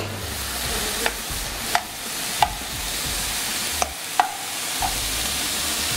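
Chicken and vegetable stir fry sizzling in a wok with a steady hiss, while a spatula stirs it and knocks sharply against the pan about six times.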